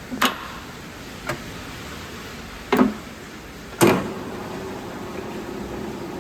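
Washino LR-55A lathe: four short clunks, the loudest about four seconds in, after which the machine starts running with a steady hum and a low held tone.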